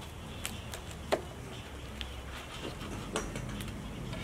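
A knife cutting through a crisp, pan-toasted pita on a plastic cutting board. It makes a few scattered crunches and taps, the loudest about a second in.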